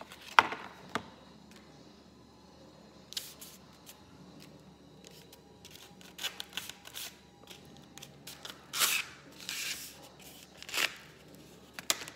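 Packaging being handled: a sharp tap about half a second in, then scattered rustling and crinkling of paper and cardboard wrapping as a kitchen knife is unwrapped, loudest in the last few seconds.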